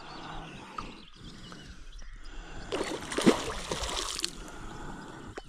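Water splashing and sloshing as a hooked carp thrashes at the surface right beside an inflatable boat, loudest for a second or so about three seconds in.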